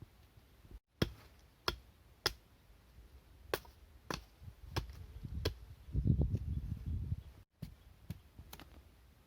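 A series of sharp, separate chopping strikes, about nine in all, as of a blade cutting into wood. Around six seconds in there is a louder, low rustling scrape.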